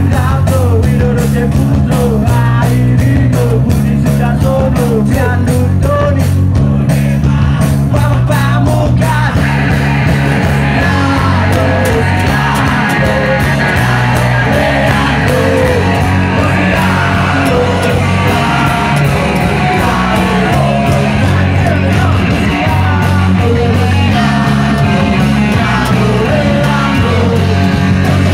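Live rock band playing loud: electric guitars, bass and drums under a male lead singer. The band grows fuller from about nine seconds in.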